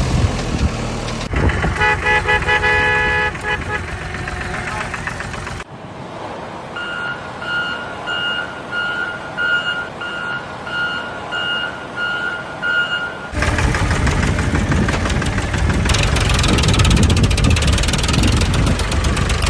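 Construction-vehicle sounds: engine noise with a short horn toot, then a reversing alarm beeping evenly for several seconds, a little under two beeps a second, then loud engine noise again.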